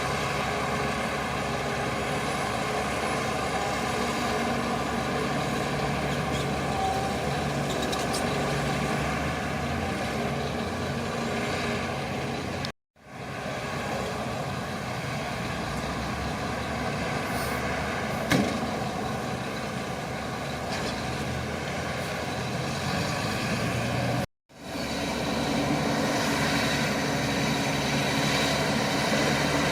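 Shantui crawler bulldozer's diesel engine running steadily under load. The sound cuts out abruptly twice for a moment, and there is a single sharp click a little past the middle.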